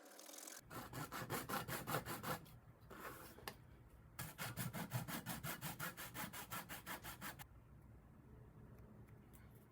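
Rapid back-and-forth rasping strokes of a hand tool working a small part, about five strokes a second. The strokes come in three runs, a short pause after the first and second, and the longest run lasts about three seconds before stopping.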